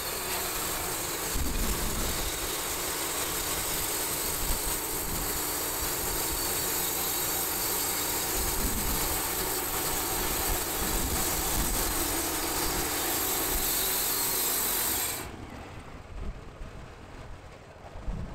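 Wood-Mizer portable band sawmill running its band blade through an oak log: a loud, steady hiss of the blade over the engine's drone, which drops off sharply about fifteen seconds in.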